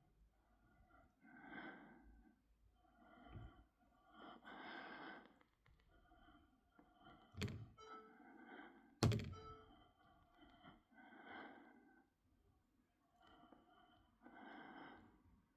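Roborock Saros Z70 robot vacuum working faintly, its sound swelling and fading every couple of seconds. There are two sharp thunks, about seven and nine seconds in.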